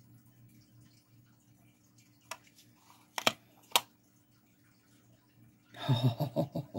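A handheld craft punch clicking three times as it cuts small shapes out of a nail-polish strip: a light click, then two sharp loud ones about half a second apart. A voice starts near the end.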